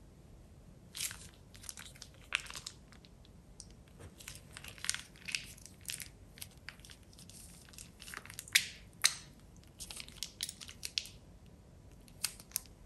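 Plastic piping bag crinkling and squishing as a hand squeezes thick liquid out of it, in irregular crackly bursts.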